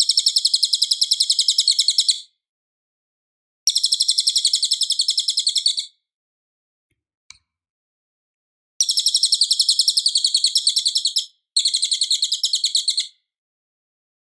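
Cililin song: high, fast trills, each about two seconds long, made of rapidly repeated notes. A trill is already running at the start, and three more follow after short silent pauses.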